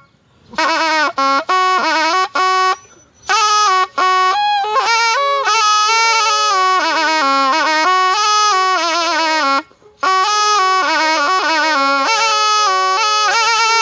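Thai pi, a reed pipe, playing a solo melody full of bent, wavering ornamented notes. The phrase breaks off for short breaths at the start, about three seconds in, and just before ten seconds.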